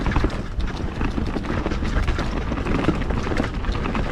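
Mountain bike being ridden down a dirt trail: tyres running over the ground and the bike rattling, with rapid knocks over bumps and a steady low wind rumble on the microphone.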